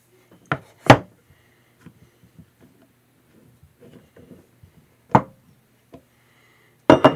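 Sharpening stones and a metal-rod stone holder handled on a countertop: a few hard knocks, the loudest about a second in, another a little after five seconds and a pair near the end, with faint small rattles between as the stone is unclamped from the holder.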